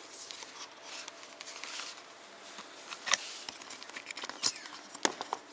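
Close rustling and a few sharp clicks from a handheld camera being moved and handled against clothing. The loudest click comes about five seconds in.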